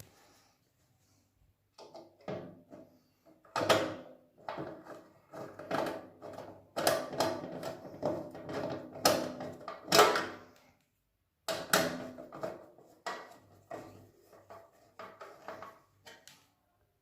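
Metal parts and tools knocking and clattering irregularly while a water heater is worked on, many knocks ringing briefly, starting about two seconds in.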